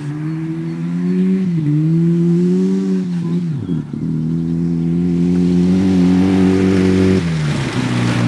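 Fiat Panda 4x4's engine driving across a grass field under steady throttle, its note dropping and picking up again three times. It grows a little louder as the car comes closer.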